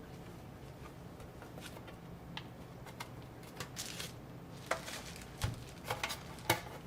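Small clicks and taps of a MacBook Air's screws and small metal and plastic parts being handled and fitted during reassembly, sparse at first and sharper and more frequent in the second half, over a low steady hum.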